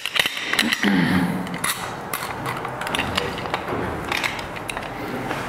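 Metal rope-rescue hardware (carabiners and a rope-grab pulley) clinking a few times near the start as it is clipped onto a rope. After that comes quieter rope handling.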